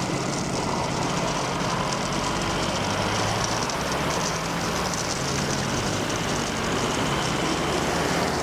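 A train passing over the level crossing with a steady rumble of wheels on the rails.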